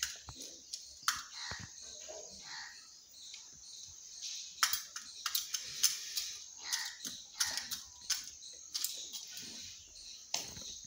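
Peacock pecking in a small metal tin, its beak striking the metal in a string of irregular sharp clicks that come thicker in the second half.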